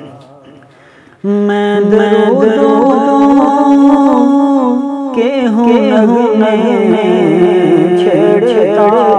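A man singing a naat, a devotional poem in praise of the Prophet, in a solo voice. One phrase fades away, then about a second in a new line starts suddenly, with long held notes and winding ornaments.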